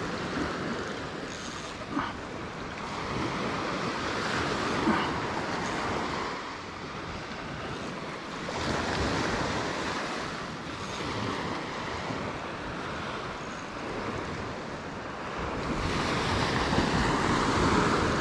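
Ocean surf washing onto the shore, swelling and easing every few seconds, with a couple of small knocks.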